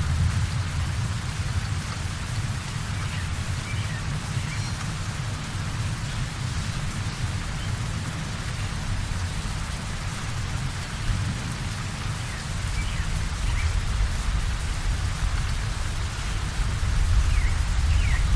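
Heavy rain pouring steadily, with a strong low rumble underneath that grows louder near the end.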